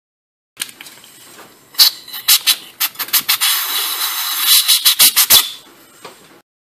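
Compressed-air blow gun blowing the chips out of a freshly tapped bolt hole: a string of short sharp blasts, then a longer hiss of air in the middle, with more short blasts after it.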